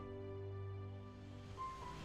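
Soft, slow instrumental background music of held notes over a low bass.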